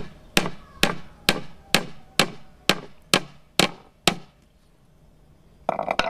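A hammer driving a small U-shaped staple into a wooden batten, about ten quick, even strikes roughly two a second that stop about four seconds in. A brief scuffing noise comes near the end.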